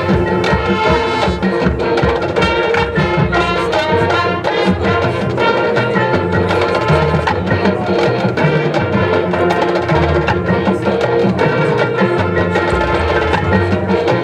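High school marching band playing, with sustained chords over busy percussion strikes throughout.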